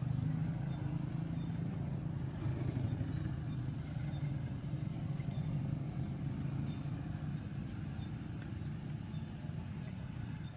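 Steady low engine rumble of a motor vehicle running nearby, easing slowly toward the end.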